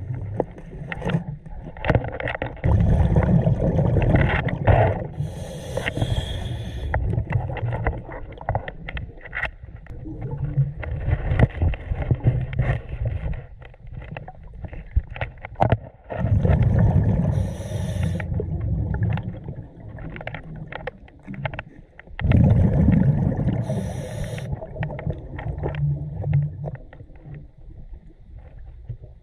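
Scuba diver breathing through a regulator underwater: three loud bursts of exhaled bubbles, each ending in a short hiss. Small knocks and scrapes of gear handling come in between.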